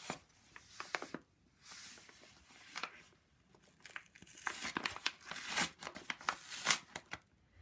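Packaging rustling, crinkling and tearing as a package is opened by hand, with irregular handling clicks, busiest in the second half.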